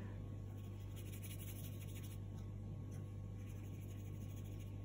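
Faint scratchy brushing of a watercolour paintbrush stroking wet paint across paper, over a steady low hum.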